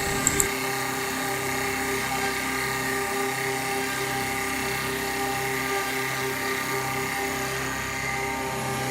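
CNC woodworking lathe with two spindles and two cutters running: a steady motor-and-spindle hum with a low tone that pulses evenly. There are two short clicks about a third of a second in.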